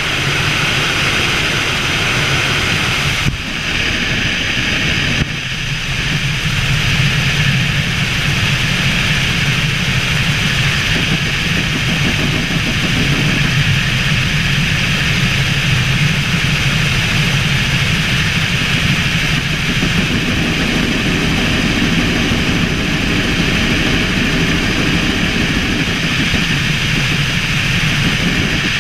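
Helicopter in flight: a steady, loud drone of turbine and rotor noise, dipping briefly twice about three and five seconds in.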